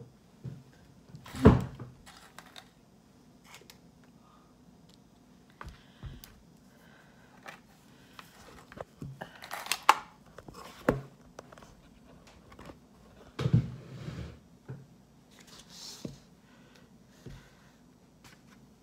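Scattered knocks and brief rustles of plastic iced-coffee cups and a foil dessert tin being picked up, shown and set down on a table, the loudest a single knock about a second and a half in, over a faint steady hum.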